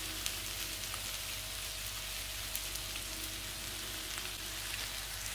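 Diced eggplant and onion frying in oil in a pan, a steady sizzle with a few faint crackles.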